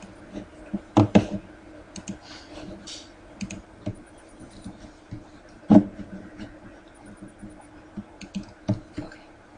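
Scattered clicks and taps on a computer keyboard and mouse, a few sharper knocks among lighter ticks, over a faint steady hum.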